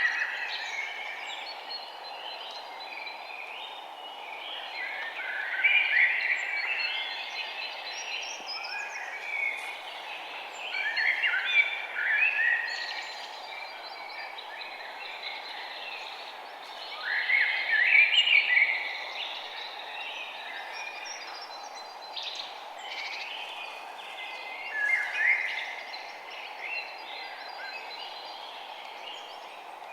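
Songbirds chirping and singing in bursts every few seconds, loudest in phrases about 6, 12 and 18 seconds in, over a steady low background hiss.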